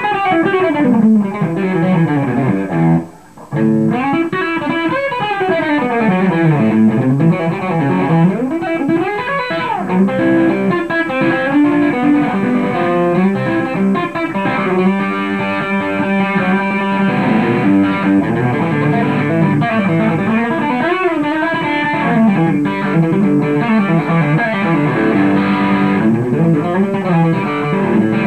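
Fender Telecaster electric guitar playing fast country licks in chicken-picking (hybrid-picking) style, quick runs of picked notes with string bends, with a brief break about three seconds in.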